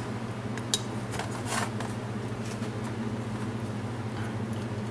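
A few faint clicks and scrapes of small metal parts in the first two seconds, as the power valve actuating shaft is slid through the side of a two-stroke motorcycle cylinder. A steady low hum runs under it.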